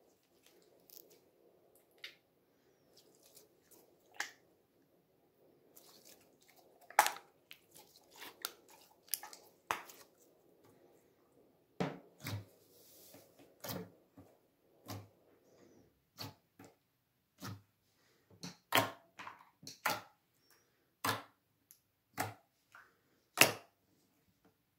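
Clear gel slime being pressed flat and pulled on a tabletop by hand, making irregular sticky clicks and small wet pops. They come sparsely at first and grow more frequent and louder about halfway through.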